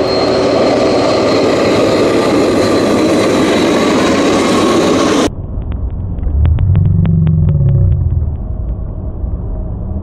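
Freight train running close by through deep snow: a loud, steady rush with a faint high whine in it. It cuts off abruptly about five seconds in. After that, a lower rumble swells and fades, with a quick run of clicks over it.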